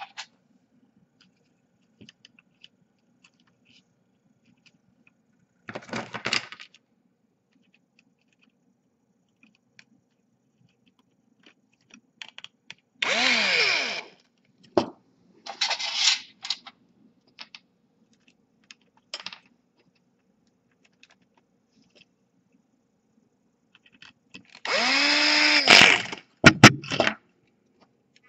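Small electric screwdriver driving the motor-mount screws of a quadcopter's brushless motor into its arm, in several short runs of about a second that spin up and stop. The longest run comes near the end, followed by a few clicks.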